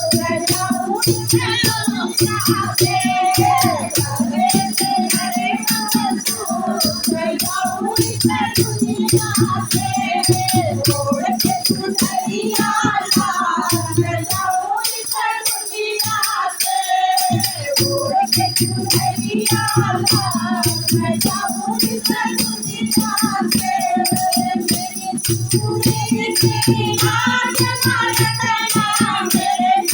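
Hindi devotional bhajan: singing over a steady low beat and continuous rattling percussion. The low beat drops out for a few seconds about halfway through, then returns.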